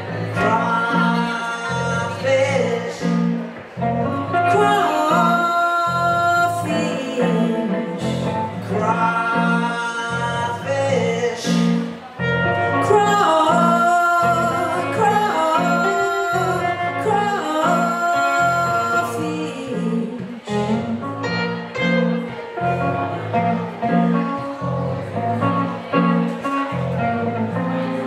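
Live blues band music: a hollow-body electric guitar and a stage keyboard playing over a steady, bouncing bass line, with a melody line that bends in pitch.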